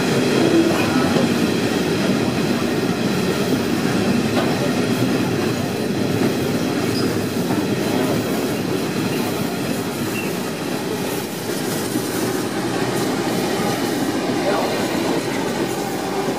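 Freight train of steel hopper wagons rolling past on the adjacent track: a steady rumble of steel wheels on the rails.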